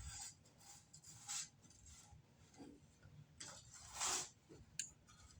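Faint rustling and swishing of a microfiber cloth being handled and rubbed, a few short strokes, with a small click near the end.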